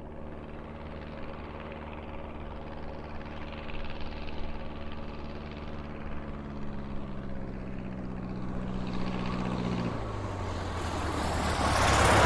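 Single-propeller Cessna light aircraft landing, heard from outside: a steady propeller-engine drone whose note drops about ten seconds in. The sound then swells into a louder rush of noise near the end.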